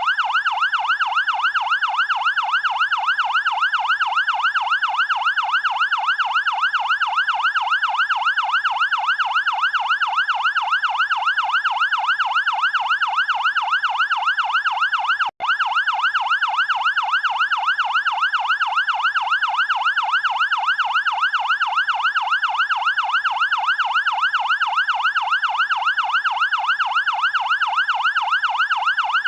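Fire engine siren in a fast electronic yelp, its pitch sweeping up and down several times a second without pause. It cuts out for a split second about halfway through, then carries on.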